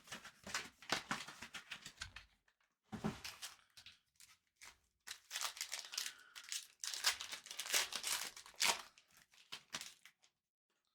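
Plastic foil trading-card pack wrappers crinkling and tearing as packs are ripped open, in irregular rustling bursts with a short lull partway through, stopping near the end.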